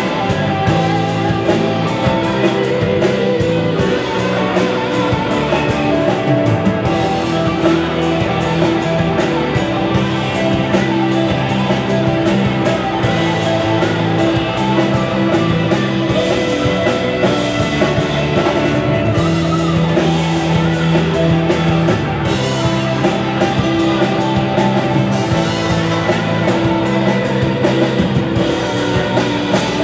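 Live rock band playing, with electric guitar and drum kit keeping a steady beat.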